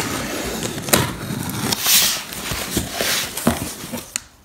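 Box cutter slitting the packing tape along a cardboard box's seam and the flaps being pulled open, in a run of scratchy rasps with a few sharp clicks. It dies away just before the end.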